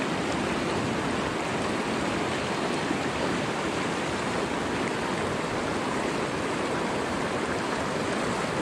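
Steady rush of creek water pouring over a low weir and through the whitewater below it.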